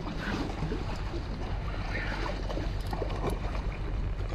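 Steady wash of wind and water, with a low rumble of wind on the microphone.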